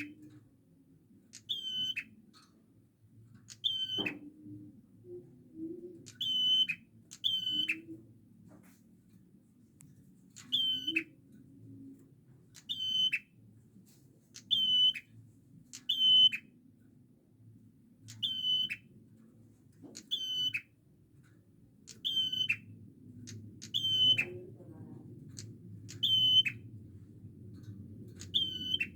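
Prinia (prenjak) calling: a sharp, high call repeated over and over, about every one and a half to two seconds, each call ending with a quick drop in pitch.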